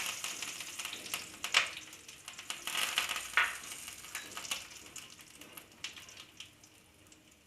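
Curry leaves sizzling in hot oil with spluttered mustard seeds, the first step of a South Indian tempering. Two sharp pops come about one and a half and three and a half seconds in, and the sizzle dies down toward the end.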